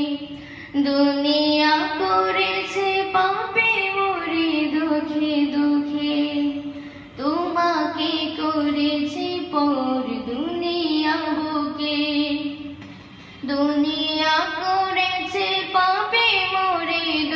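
A boy singing a Bengali Islamic song, a single voice holding long, ornamented notes in a slow melody. There are short breaks between phrases about seven and thirteen seconds in.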